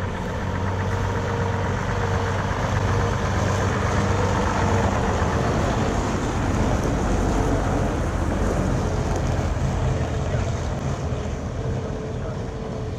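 Vintage Leyland diesel double-decker bus driving slowly past, its engine running steadily. It grows louder as it comes close, about four seconds in, and fades as it pulls away.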